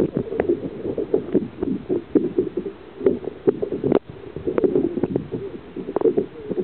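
Muffled water sloshing and knocking around a camera held underwater, with a dense run of irregular thumps and clicks.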